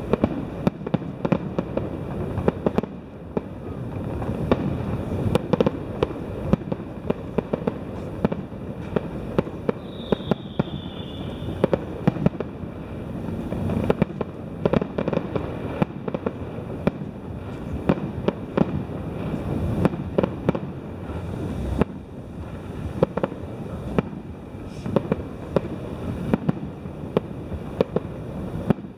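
Fireworks display: a dense, continuous run of bangs and crackles over a low rumble, with a brief falling whistle about ten seconds in.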